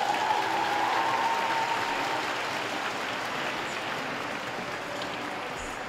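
Arena audience applauding. The clapping swells at the start and then slowly dies away.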